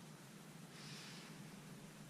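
Near silence: faint room tone with one soft hiss about a second in.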